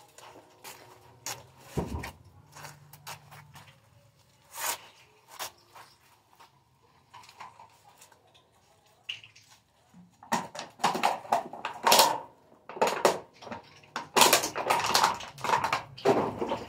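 Rustling and clatter of trash and recyclables being handled: scattered knocks and clinks at first, then a busier stretch of rustling and clattering over the last six or seven seconds.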